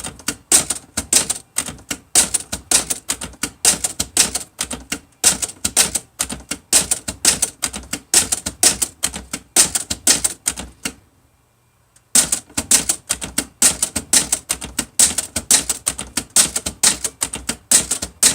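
Early-1960s Olivetti-Underwood Studio 44 manual typewriter being typed on: quick, sharp typebar strikes at about three a second. They stop for about a second past the middle, then resume.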